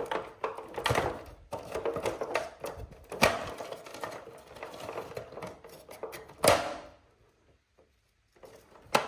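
Irregular clicking and rattling from handling the opened air conditioner indoor unit's plastic casing and control board, with sharper knocks about three seconds in and six and a half seconds in.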